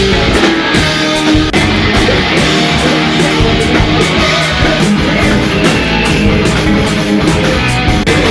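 Live heavy metal band playing loud: distorted electric guitars and bass over a drum kit with steady cymbal hits, and a singer on a microphone.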